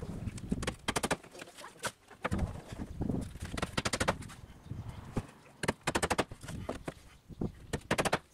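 Claw hammer driving nails through wooden planks, struck in quick runs of blows separated by short pauses.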